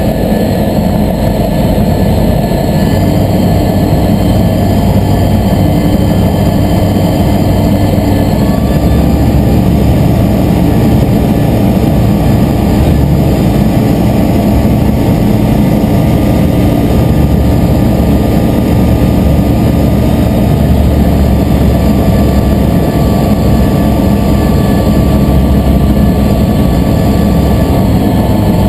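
Aeroprakt A22LS ultralight's engine and propeller running steadily in cruise, heard from inside the cabin as a loud, constant drone, with slight changes in pitch about 3 and 8 seconds in.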